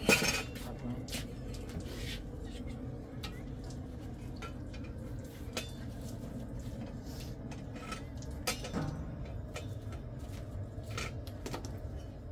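Dishes and utensils being handled: scattered light clinks and knocks, with a louder clatter at the start and another knock about eight and a half seconds in that rings briefly.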